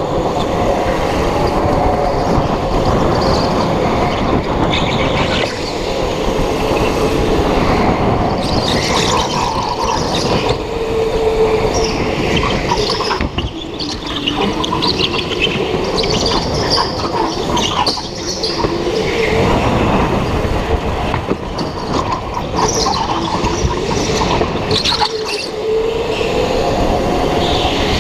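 Go-kart driven hard on an indoor track: its motor pitch rising and falling with speed through the laps, with tyres squealing in several corners over a steady low rumble.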